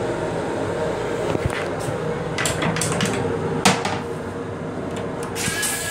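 Steady running rumble and hum of an M7 electric railcar heard inside its restroom. Over it come a few clattering knocks of the toilet seat being lifted, the loudest a little past halfway, and a hiss rises near the end.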